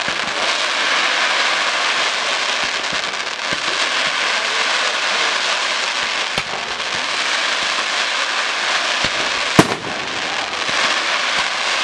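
Fireworks display: a steady, dense crackling hiss from shells rising on sparking tails, broken by a few sharp bangs. The loudest bang comes near the end.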